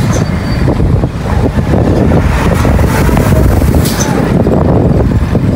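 Wind rushing over the microphone while riding in an open, moving vehicle, with steady road and traffic noise underneath.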